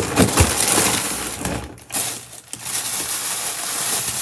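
Plastic packaging crinkling and rustling in irregular handfuls as it is handled close to the microphone.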